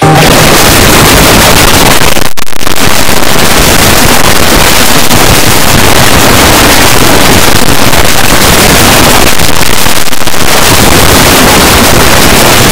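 Extremely loud, heavily clipped distortion noise, a harsh static-like blast filling every pitch: an "earrape" edit with the audio overdriven past recognition. It drops out for a split second about two seconds in.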